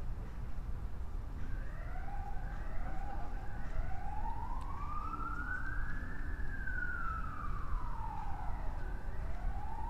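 Emergency-vehicle siren: a few short rising yelps, then one slow wail that climbs for about two seconds and falls for about two and a half, rising again near the end, over a steady low rumble.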